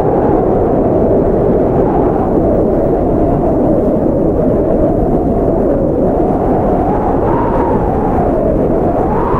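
Strong blizzard wind: a steady rush of low noise with a whistling pitch that drifts up and down, climbing near the end.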